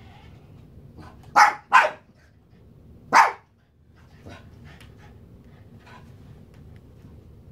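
Boston terrier puppy barking: two quick barks about a second and a half in, then a single bark about three seconds in, with faint low background noise between them.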